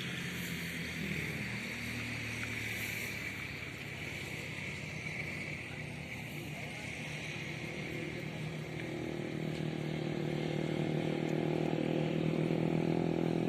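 A small engine running steadily, growing louder over the last few seconds.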